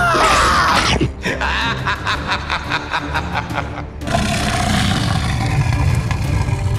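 Background music with a quick pulsing pattern of about four beats a second, then a steadier stretch; a cartoonish voice clip trails off at the very start.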